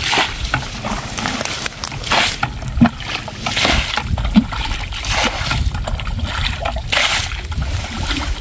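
Muddy water being bailed out of a shallow mud pond with a metal bucket: each scoop is flung out in a splash, about five splashes at a steady pace of one every one and a half to two seconds.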